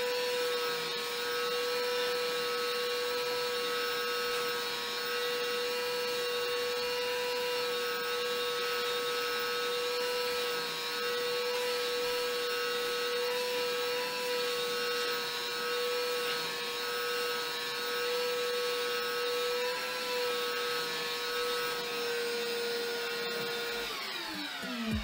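Shop vacuum running with a steady whine, its hose sucking MDF dust and chips off a freshly CNC-cut sheet. Near the end it is switched off, and the whine falls away as the motor winds down.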